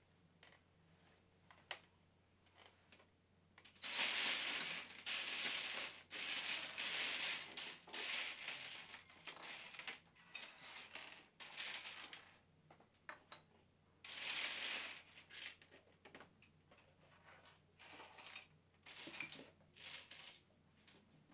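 Loose plastic Lego pieces rattling and clattering as hands sift through a pile of them. A few single clicks come first, then several seconds of dense clatter, and two shorter bursts near the end.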